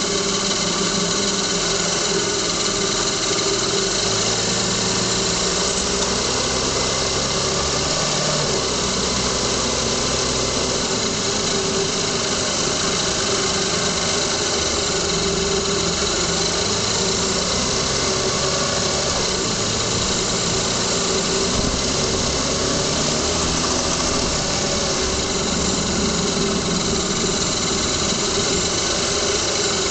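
2000 Lexus ES300's 3.0-litre V6 running, heard from under the hood, with low tones that shift in pitch as engine speed changes. The car has a rattling or ticking noise from beneath, loudest when warm and at low speeds, that the owner has not traced; the heat shields look fine.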